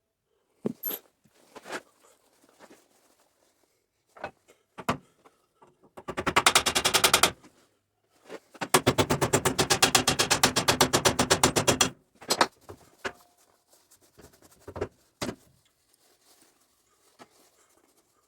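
An impact wrench hammering in two bursts of rapid, even rattling, a short one about six seconds in and a longer one of about three seconds, with scattered clicks and clanks of tools and metal parts around them.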